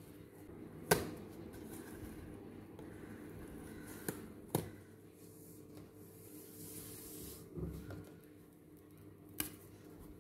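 Corrugated cardboard pieces being handled and set down on a table: a few sharp taps, the loudest about a second in, with light rubbing and a dull bump between, over a faint steady hum.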